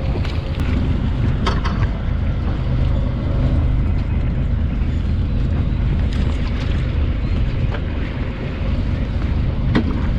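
Wind buffeting the microphone over the steady low rumble of a fishing boat at sea, with a few short sharp clicks.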